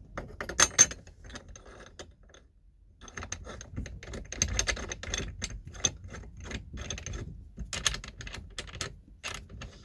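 Hand tools and small metal parts clicking and clinking in quick succession, with a few sharper knocks about half a second in and again near the end.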